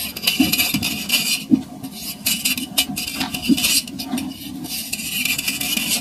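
A lump of dry compacted sand crumbled and scraped apart between fingers: a gritty, rasping hiss in long stretches, broken by a few soft knocks.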